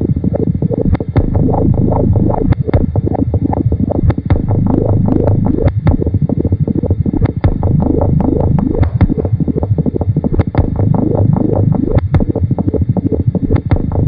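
Experimental tape-music collage: dense, irregular clicks over a low mass of quickly rising and falling pitches, with no steady beat or melody.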